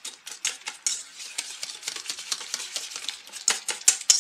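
Wire whisk beating eggs in a stainless steel bowl: quick, uneven metallic ticking of the wires against the bowl, several strokes a second, a little louder near the end.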